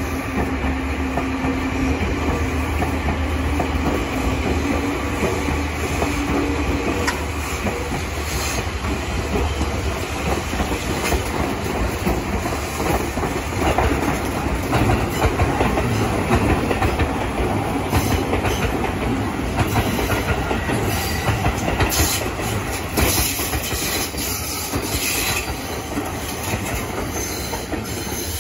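Seibu electric trains passing close by on a curve: a steady rolling rumble with the clickety-clack of wheels over rail joints and some wheel squeal. A steady low tone rings out in the first few seconds.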